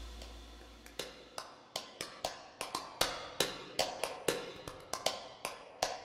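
Background music in a sparse break: the low tail of the previous passage fades out, then a run of sharp clicks or snaps in a steady rhythm, about three a second.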